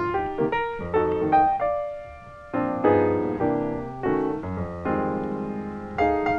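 Background piano music: chords and melody notes, each struck sharply and left to fade.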